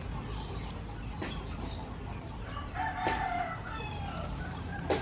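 A rooster crows once, about halfway through, over a low steady background hum. There are three short, sharp taps: one about a second in, one during the crow and one near the end.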